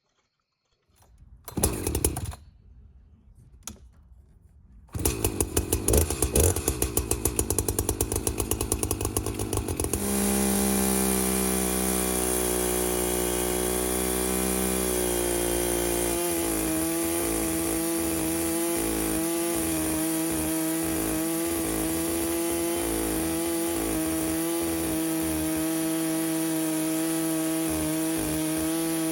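Two-stroke Echo CS-590 gas chainsaw, after a couple of short sounds, running at a rapid putter from about five seconds in, then opening up to a steady full-throttle whine about ten seconds in, its pitch settling slightly lower a few seconds later.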